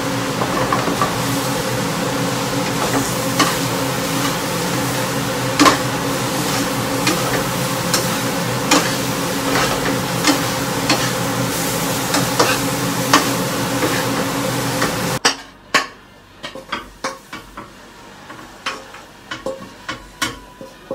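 Spatula knocking and scraping against a frying pan as chicken with pickled bamboo shoots is stir-fried, over a steady sizzle and hum, with a knock about once or twice a second. About fifteen seconds in the steady background drops away suddenly, and the spatula scrapes the food out of the pan onto a plate with scattered knocks.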